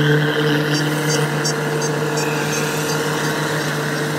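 Kubota DC-105X rice combine harvesters running steadily while cutting rice: a steady, even engine and machinery hum. Faint short high pips repeat two or three times a second from about a second in until near the end.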